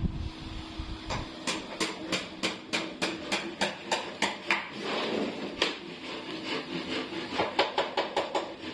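Hammering on the wooden frame of a sofa, with sharp blows about three or four a second. A short scraping rub comes about five seconds in, and a quicker run of blows near the end.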